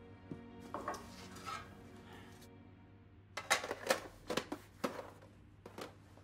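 Soft background music with held notes fades out over the first two seconds. Then comes a quick run of about a dozen sharp clicks and knocks as a small box is handled on a bar counter.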